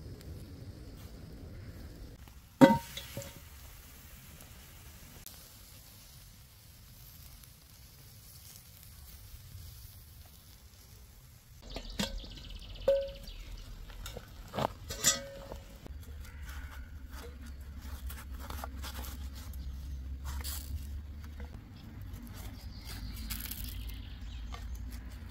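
Chicken skewers cooking over hot embers with a faint sizzle, broken by a few sharp knocks and clinks: one loud knock near the start and a cluster of four more about halfway through.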